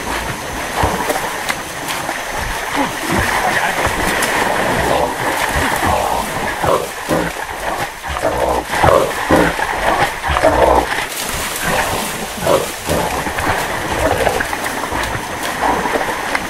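Catch dogs and a wild hog they have caught making a noise in a creek, with water splashing underfoot. The calls are loudest in a cluster of irregular calls midway through.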